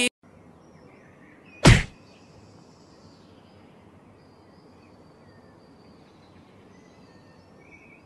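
A single sharp thump a little under two seconds in, over faint, steady outdoor background noise.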